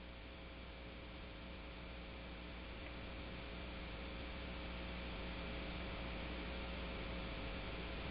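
Open conference-call line with nobody talking: a steady electrical hum under background hiss, growing slightly louder.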